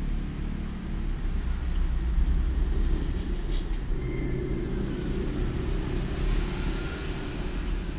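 Steady low rumble of background noise, with a few light clicks about three seconds in.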